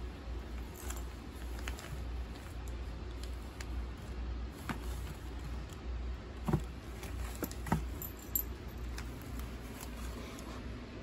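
Crumpled paper packing filler crinkling and rustling in scattered short crackles as a cat rolls and rubs on it, with a few louder sharp sounds in the middle.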